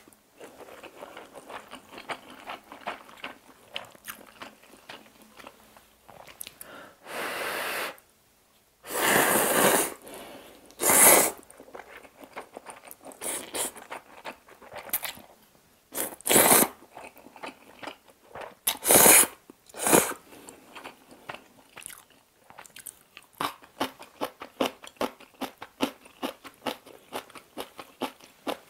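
A person eating instant ramyeon noodles: about six loud slurps of noodles, each lasting about a second, between wet chewing and lip-smacking clicks that turn quick and steady in the last third.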